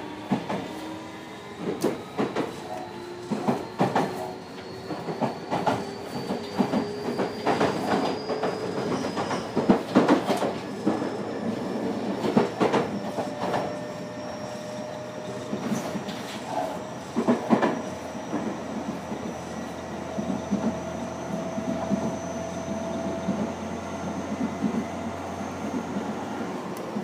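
Tobu 60000-series electric train running from inside a motor car while accelerating: the traction motor whine rises steadily in pitch, with repeated clicks from the wheels over rail joints. Under acceleration this car also gives off an unusual 'fuu' whooshing sound alongside the motor noise, not heard on other 60000-series cars.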